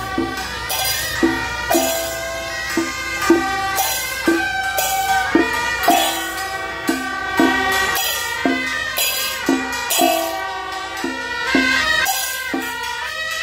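Traditional-style music with percussion: struck, pitched notes about twice a second under a held melody line.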